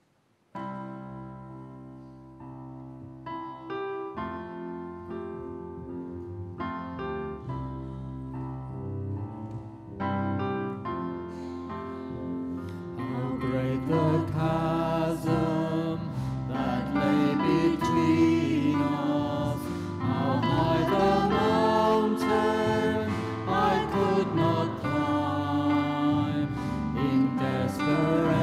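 A church music group starts a worship song with an instrumental introduction of held chords. About halfway through, voices join in singing and the music grows fuller and louder.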